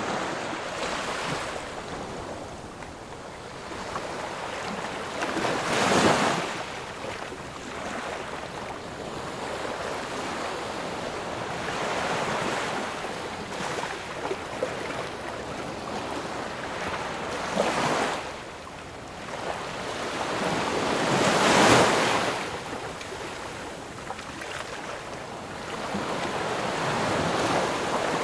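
Ocean waves breaking and washing up on a shore, a steady rush of surf that swells with each wave. The strongest waves crash about six seconds in and again about 22 seconds in, with smaller ones between.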